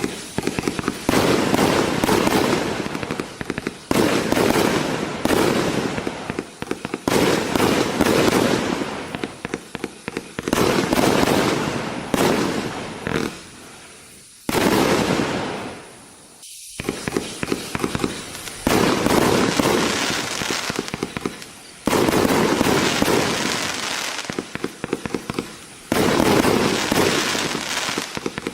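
Samurai Strike consumer firework (Oriental Fireworks) going off in a series of loud crackling bursts, each starting suddenly and fading out over about two seconds, with a short lull about halfway through.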